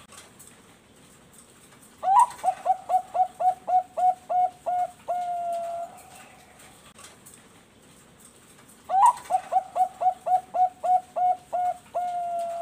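Zebra dove (Bangkok-type perkutut) singing twice. Each song opens with a rising note, runs into a quick string of about ten short coos at roughly four a second, and ends on one long held coo.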